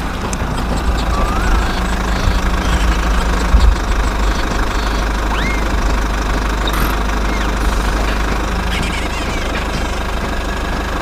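An engine running steadily with a low, rough rumble.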